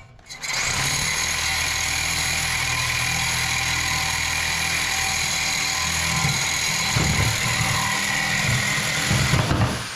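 Reciprocating saw (Sawzall) starting up and running steadily as it cuts into scrap metal. Near the end it jolts loudly a few times and then stops, as the blade binds and bends.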